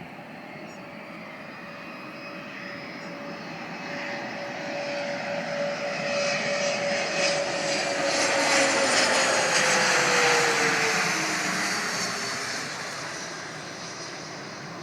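Bombardier CRJ200's two rear-mounted GE CF34 turbofans as the regional jet passes close by. The engine noise and whine grow steadily louder to a peak about nine to ten seconds in. Around eleven seconds the whine drops in pitch as the jet goes past, and the sound then fades.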